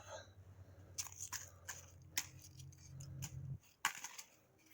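Faint scattered clicks and light taps, like tools or parts being handled, over a low hum that stops about three and a half seconds in.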